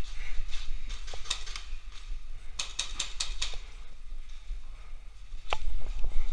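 Paintball markers firing: scattered sharp cracks, with a quick string of about half a dozen shots a little under three seconds in and a single louder crack near the end.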